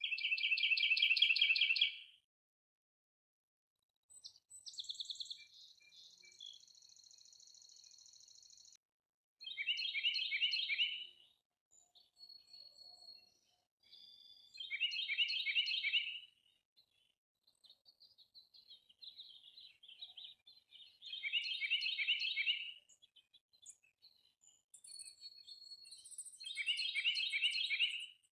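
Birdsong: one bird repeats a short, rapid phrase about every five seconds, with fainter, higher chirps and trills from other birds in between.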